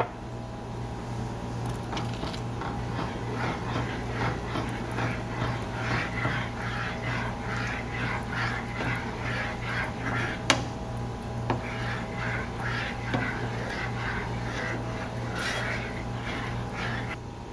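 A black slotted spoon stirring shredded cheese into a thick cheese sauce in a nonstick saucepan, the strokes coming rhythmically about twice a second as the cheese melts in. There is a sharp tap of the spoon against the pan about ten seconds in, and a steady low hum underneath.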